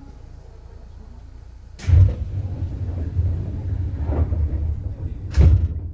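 Seibu 2000 series train's underfloor line breaker clunking shut about two seconds in. A low rumble of the train under power follows, and a second sharp clunk comes near the end as the breaker opens again.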